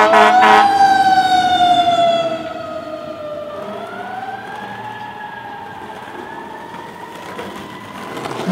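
A siren wailing, its pitch sliding slowly down and then back up. It is loud for about two seconds, then fades.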